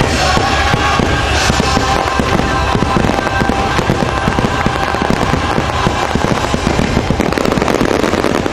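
Finale barrage of fireworks: a rapid, continuous volley of cracks and booms, several a second, with the show's music underneath that fades after the first couple of seconds.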